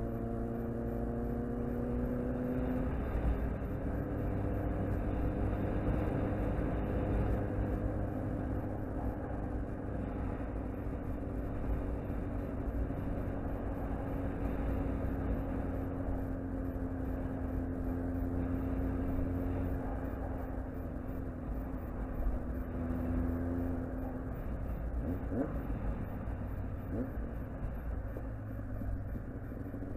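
Sport bike engine running while riding at steady city speed, its note shifting about three seconds in and again near the end, over a steady rush of wind and road noise.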